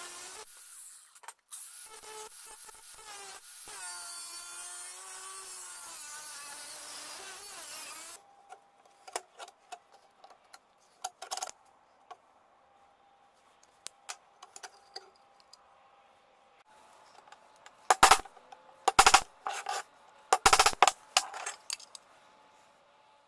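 A cordless angle grinder cuts through a steel circular saw blade, its whine wavering under load, and stops about eight seconds in. Then come quiet scattered clicks of handling, and near the end a few loud metallic knocks and clanks as the blade is handled.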